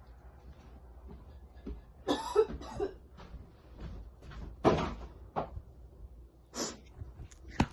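A person coughing hard several times: two coughs close together about two seconds in, then single coughs a few seconds apart. Short sharp knocks fall in between.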